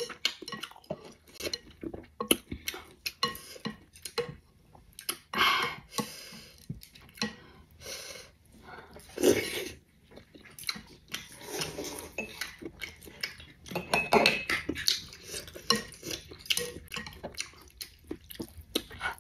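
Chopsticks and a spoon clicking and knocking against a ceramic soup bowl, with several slurps of noodles and some chewing in between.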